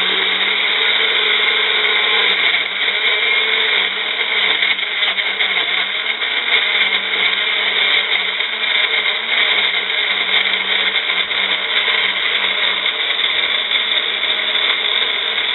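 Magic Bullet personal blender running continuously, puréeing fresh strawberries, its motor pitch wavering slightly.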